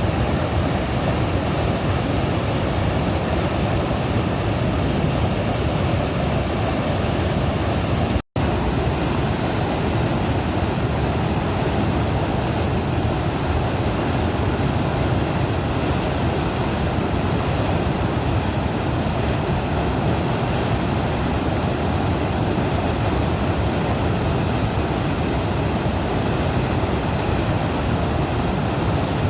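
Floodwater of a swollen river rushing steadily, broken for an instant by a cut about eight seconds in.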